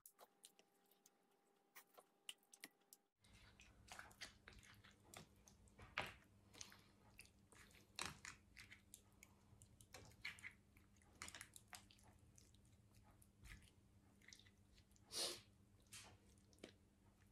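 Faint wet squelching and scattered clicks of chicken pieces being turned in a soy-based marinade with tongs in a glass bowl. The sounds are irregular and start about three seconds in, after a near-silent start.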